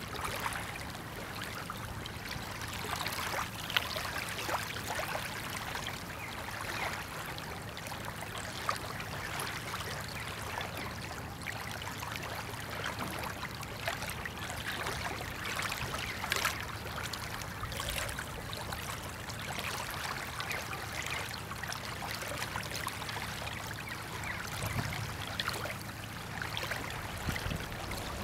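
Water lapping and trickling at the river's edge, with small splashes throughout. Underneath runs a steady low hum from the passing cruise ship.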